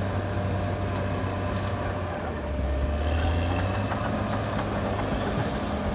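Caterpillar D6R XL bulldozer's diesel engine running steadily. A little over two seconds in, its note drops lower and grows slightly louder.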